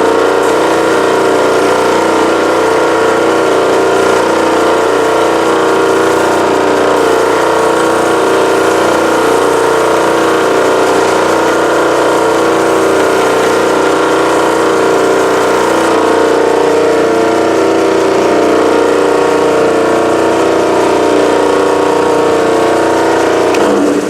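Belt sander running steadily while the corners of a Delrin block are sanded down; the motor cuts off at the very end.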